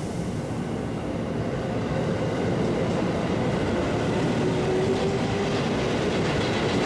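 A JR Freight container train hauled by an EF210 electric locomotive rolls into the station. The steady rumble of wheels on rail grows louder over the first couple of seconds, with a faint steady whine through the middle.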